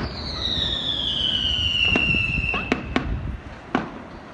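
Fireworks: a whistling firework shrieks for about three seconds, falling steadily in pitch, then several sharp cracks and bangs follow.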